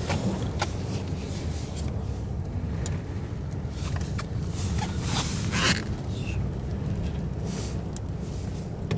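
Car driving slowly, a steady low rumble of engine and tyres heard from inside the cabin, with scattered sharp clicks and a brief hiss about five seconds in.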